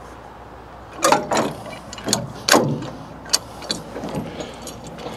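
Semi-trailer landing gear (dollies) being cranked up by hand: a run of irregular metal clanks and clicks from the crank handle and gearing, starting about a second in.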